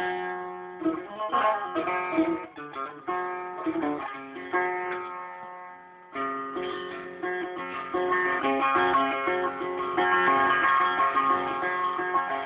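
A newly built setar, with a soundboard of very old Iranian mulberry wood and a large zebrawood bowl, plucked in a Persian melodic passage. The phrase dies away about halfway through, then a new, fuller run of notes starts.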